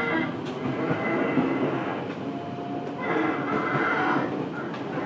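Fukuoka City Subway 1000N-series train running, heard from inside the car: steady wheel and rail noise with motor whine tones that shift in pitch, and a couple of brief clicks.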